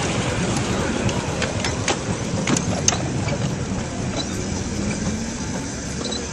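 Miniature live-steam locomotive running along its track: a steady rumble of wheels and motion with a few sharp clicks in the first few seconds, getting a little quieter toward the end.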